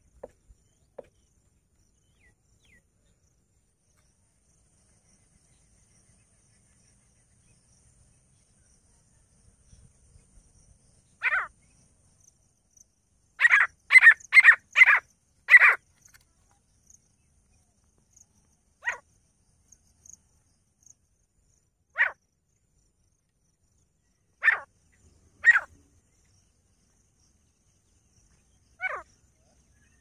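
Grey francolin calling: short, loud calls, one on its own, then a quick run of five at about two a second, then single calls a few seconds apart.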